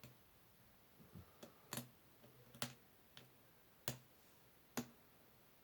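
Pins clicking inside an ABUS 85/40 padlock as it is picked under tension: about seven sharp, separate clicks at uneven intervals. The pins are setting on their way to a false set.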